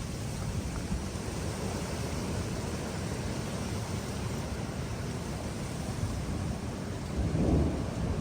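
Thunder rumbling steadily in a thunderstorm, swelling louder for about a second near the end.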